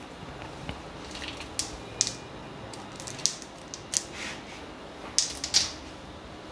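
Scattered light clicks and taps, about eight of them, from small kitchen containers being handled on a stone countertop. The sharpest pair comes about five seconds in, as a small steel bowl is taken up.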